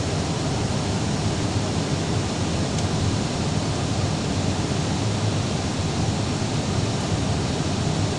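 Steady cabin noise inside an Airbus airliner in flight: an even, deep rush of airflow and engines heard from a window seat during the approach descent.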